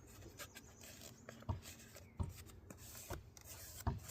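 Faint, sped-up workshop handling noise: scattered light clicks and knocks with some rubbing, several in a few seconds, over a low background hum.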